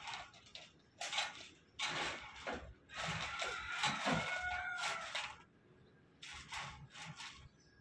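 Chain-link fence mesh rattling and scraping in several bursts as a horned ram rubs and pushes its head against it. In the middle, a rooster crows once in the background.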